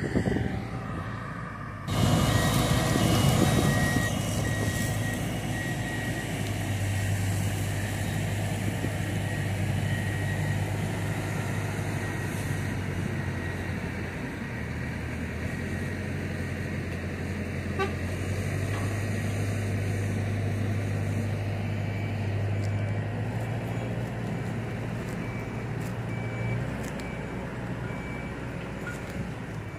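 Diesel engine of a loaded sugarcane truck running steadily, with a reversing alarm beeping repeatedly over it.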